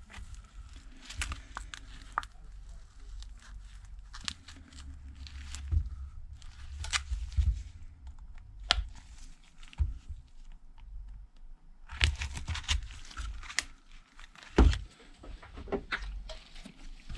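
Thin plastic pry card scraping under the cracked back glass of a Samsung Galaxy S8, with irregular crackles and sharp ticks as the alcohol-softened adhesive tears loose.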